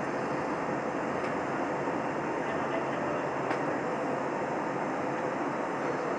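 Steady cabin roar of an Airbus A320neo in flight, heard inside the cabin over the wing: the engines' drone and the rush of air past the fuselage, even in level with a faint steady hum underneath.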